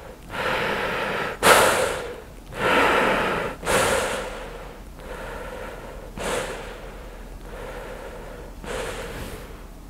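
Breathing in and out through an AusAir Airflex filter mask, close to the microphone. There are four heavy breaths in quick succession in the first few seconds, two of them sharp, forceful puffs, then two softer breaths spaced further apart.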